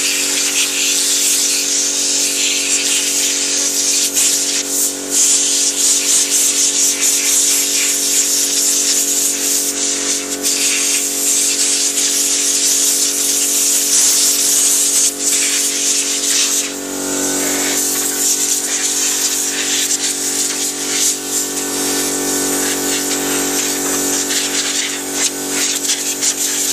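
Compressed air hissing hard from an air blow gun, blasting dust out of computer parts, the hiss swelling and easing as the trigger is worked. A steady hum runs underneath.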